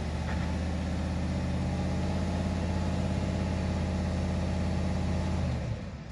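Pickup truck engine running steadily under load in low gear as the stuck truck's wheel turns and winds a recovery strap wrapped around the tire, pulling the truck out of the mud. The engine note eases off near the end.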